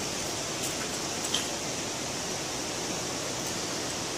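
Steady hiss with a couple of faint clicks about a second in.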